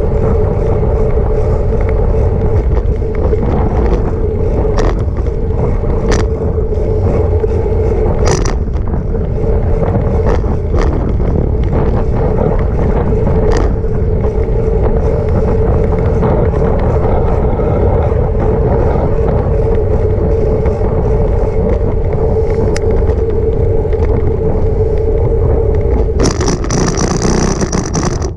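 Wind rumble on a bicycle-mounted camera's microphone and tyre noise from a bicycle ride along a street, with a steady hum and a few sharp knocks. A brighter hiss rises for about two seconds near the end.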